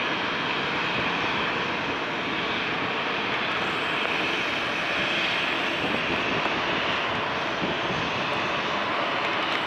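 Boeing 737-800's CFM56-7B turbofan engines running at taxi power: a steady jet whine and rushing hiss.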